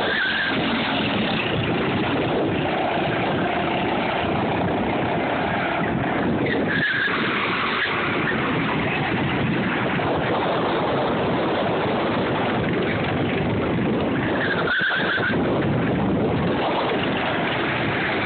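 Go-karts running around a paved kart course with a steady engine and tyre noise. Short tyre squeals come at the start, about seven seconds in, and again about fifteen seconds in.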